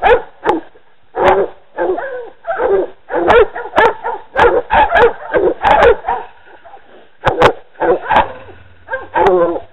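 Hog dogs baying: a loud, steady run of barks, about two a second with short pauses, the sound of dogs holding a wild hog at bay in thick brush.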